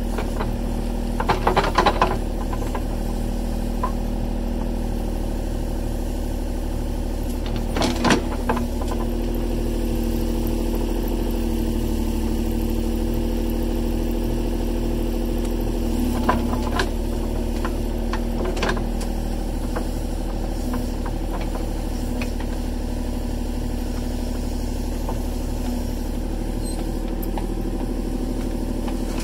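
An engine running steadily at an even speed, with a few short clanks, the loudest a quick clatter about two seconds in and another around eight seconds in.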